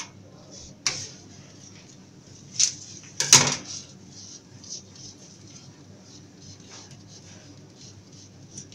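Glossy gift ribbon being handled and folded: a few short crackles and rustles, the loudest about three and a half seconds in, over a steady background hiss.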